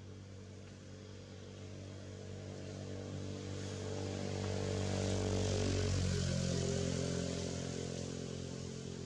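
A motor engine passing by, swelling to its loudest about six seconds in and then fading, its pitch dropping slightly as it goes past.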